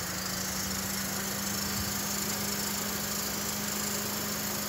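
Vehicle engine idling steadily, a constant low hum.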